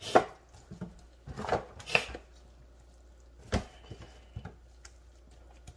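A few short taps and crinkles of a disposable aluminium foil pan as gloved hands place butter pats on a whole red snapper.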